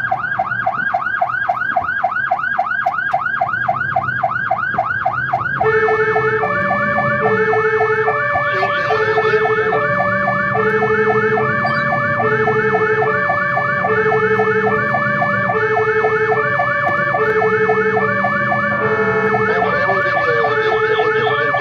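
Fire engine's electronic siren sounding on an emergency run. It begins as a fast warbling yelp, then about five seconds in switches to a slower pattern of alternating high and low tones, repeating about once a second over a steady high tone.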